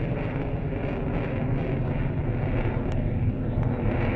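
Fighter jet's engines heard from the ground as the jet manoeuvres overhead: a steady, deep rumble that swells slightly near the end.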